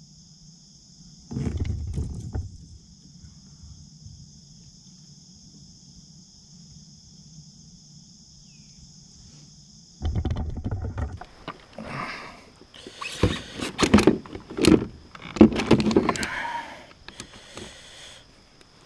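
Handling noises in a plastic fishing kayak: a few low thumps early on, then a loud thump and a run of sharp knocks, clicks and rattles as gear and a caught bass are moved about, over a steady faint hum.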